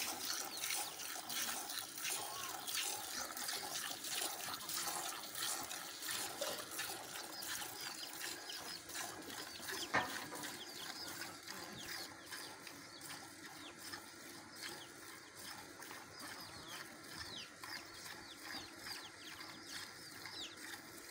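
Milk squirting from a cow's teats into a steel bucket during hand milking, in a steady run of short strokes. A single sharp knock sounds about ten seconds in.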